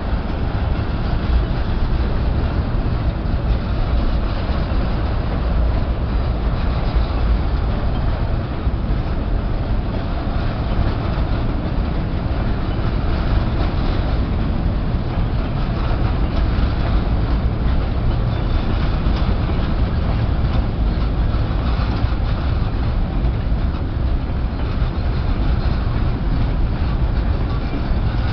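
Empty grain hopper wagons of a long freight train rolling past at speed: a steady, loud rumble of steel wheels on the rails.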